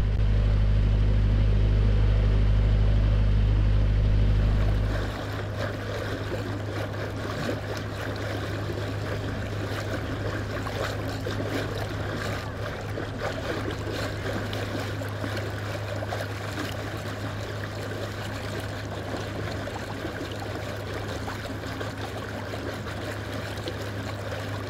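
Narrowboat engine running steadily with a loud low hum. About five seconds in it cuts abruptly to a quieter engine note under an even rushing hiss of water.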